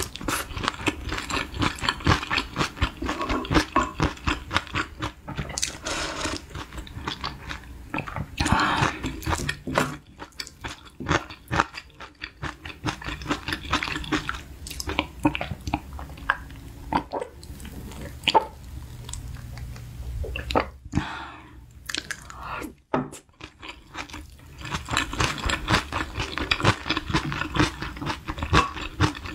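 Close-miked eating of spicy fried rice: wet chewing, crunching and lip smacks with light clicks of chopsticks and a spoon. The sounds are dense at first, thin out in the middle, and come thick again near the end.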